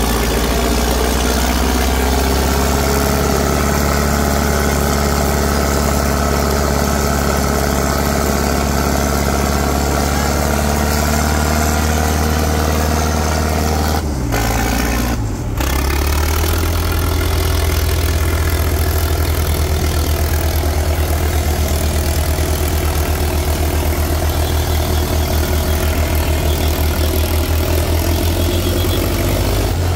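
Diesel tractor engine running loudly and steadily, with two brief dropouts near the middle.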